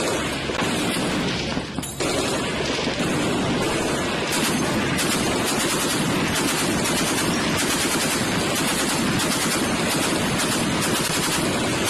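M2 .50-calibre heavy machine gun firing in sustained automatic fire, with a brief letup about two seconds in.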